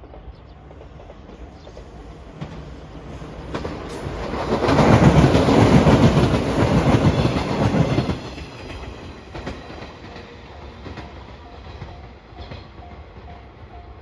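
JR West 115 series electric local train passing close by, its wheels clattering over the rail joints in a quick rhythm, building up, loudest for a few seconds in the middle, then fading as it moves away. A level-crossing warning bell rings about twice a second as the train recedes.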